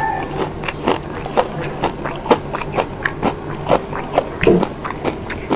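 A person chewing a mouthful of rice close to the microphone, with wet mouth smacks about two to three times a second.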